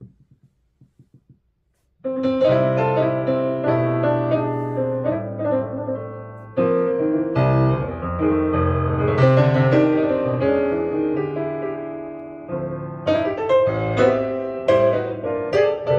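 A few faint clicks, then piano music starts about two seconds in, played back over hi-fi loudspeakers.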